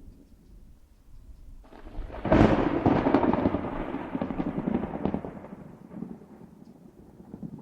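A thunderclap: faint rumbling, then a sudden loud crack about two seconds in that rolls and rumbles away over the next few seconds.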